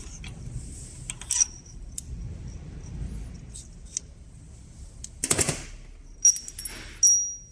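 Metal tools and loose injector parts clicking and clinking on a bench while an injector's nozzle nut and nozzle are being taken off. There is a short scraping rattle about five seconds in, then two sharp ringing metal clinks near the end, the last one the loudest.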